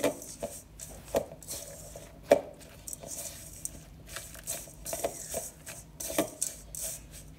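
Spatula stirring a sticky granola, peanut butter and honey mixture in a stainless steel bowl: irregular scraping and knocks of the spatula against the bowl, the loudest a little over two seconds in.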